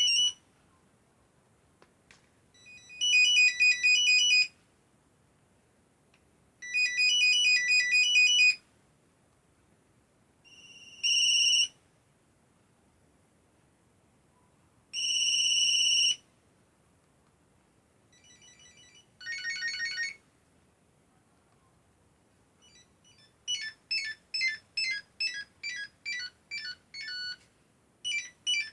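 Nokia 3110 mobile phone playing its monophonic ringtones as a series of short beeping tunes with pauses between them, one of them a single held beep. Near the end comes a fast, even run of beeps, about three a second.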